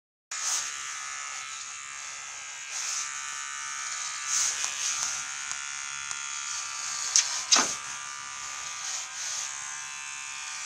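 Electric hair clipper buzzing steadily as a small dog's fur is trimmed, with two brief sharp sounds a little past the middle that stand out above the buzz.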